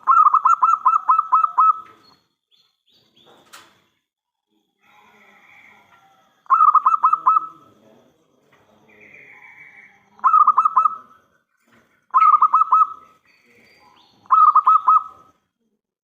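Zebra dove (perkutut) cooing in bouts of rapid staccato notes: a long run of about eight notes at the start, then four shorter runs of about four notes each, a few seconds apart.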